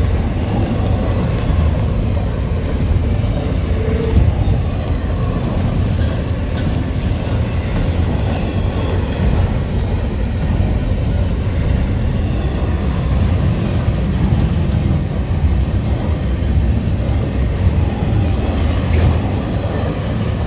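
Norfolk Southern intermodal freight train rolling past, a loud, steady low rumble of wheels on rail.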